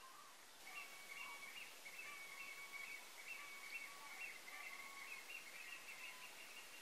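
Faint birdsong: a run of short whistled notes and held tones, starting about half a second in, over a soft steady hiss.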